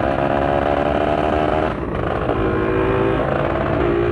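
Motorcycle engine running at steady revs on the move. About two seconds in, the sound dips briefly, then settles at a lower steady pitch.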